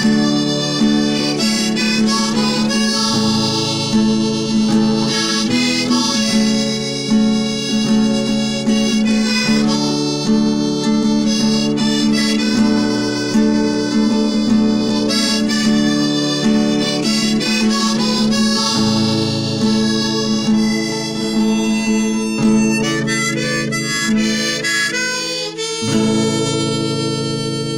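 Accordion (gaita) playing a regional tune: a melody over sustained bass and chord notes, with a brief dip near the end before it carries on.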